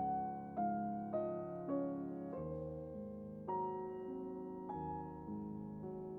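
Background music: soft piano notes played one after another about every half second over sustained chords.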